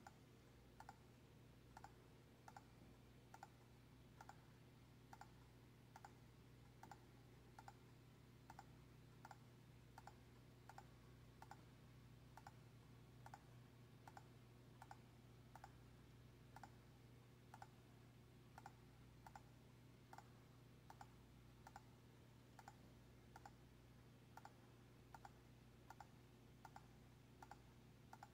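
Faint, evenly paced computer mouse clicks, about four every three seconds, stepping through photos in a picture viewer, over a steady low electrical hum.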